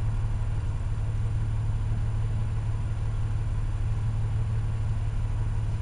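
Vehicle engine idling steadily: a low, even hum with a fine regular pulse.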